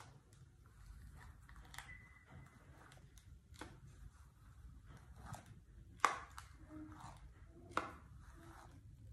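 Philips flat-iron hair straightener being clamped on and drawn through a section of hair: scattered soft clicks of the plates closing, with light rustling. Two sharper clicks in the second half.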